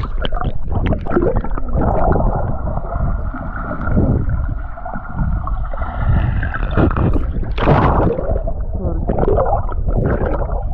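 Sea water sloshing and gurgling around the microphone as a swimmer moves through the water, with irregular splashes throughout.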